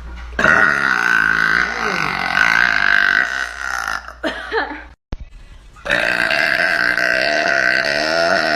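A woman burping: two long, drawn-out burps. The first lasts about three and a half seconds; the second starts about six seconds in and runs on past the end.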